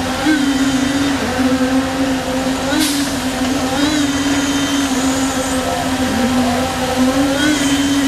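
Concrete deck finisher running as it travels along its rail: a steady mechanical drone from its electric drive motors and gearing, with a slight waver in pitch and faint high whines. A sharp click sounds about three seconds in.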